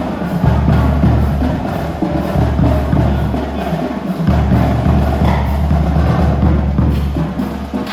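A marching band playing: brass with sustained low bass notes over a drumline beat with sharp, woodblock-like percussion strokes.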